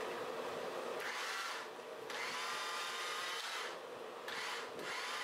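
Electric drill powering a homemade twisting machine, twisting a red-hot damascus billet. It runs in several short spurts of motor whine, starting about a second in, the longest about a second and a half.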